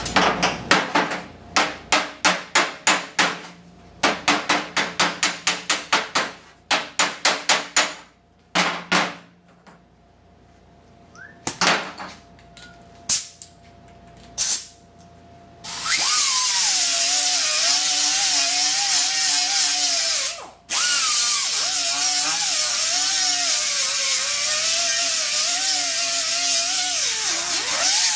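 Wire-feed welder stitch-welding sheet-steel door panel in quick short bursts, about three a second, in several runs, with a few single bursts after. About sixteen seconds in, a small air-powered die grinder starts grinding down the welds, running steadily with a whine that wavers as it bears on the metal; it stops briefly about twenty seconds in.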